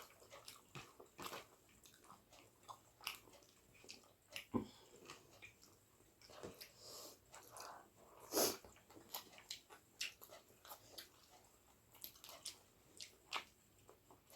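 A person chewing and biting food close to the microphone: scattered small wet clicks and smacks of eating, with a louder one about eight and a half seconds in.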